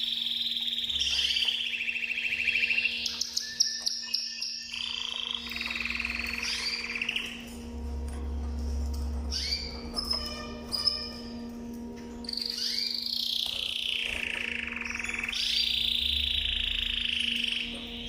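Domestic canary singing in long, continuous phrases of rapid trills and rolls, with bursts of fast clicking notes and short pauses between phrases.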